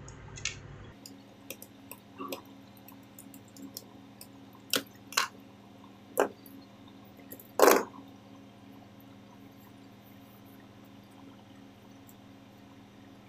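Hands working wires and contactor terminals: scattered small clicks and taps, with a few sharper clicks between about four and eight seconds in, the loudest just before eight seconds, over a faint steady hum.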